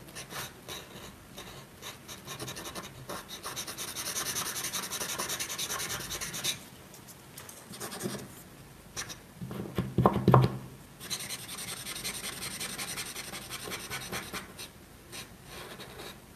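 Paint marker scrubbing back and forth on paper while filling in a solid black area: rapid scratching strokes that ease off about six and a half seconds in, a brief louder low sound about ten seconds in, then the scratching resumes.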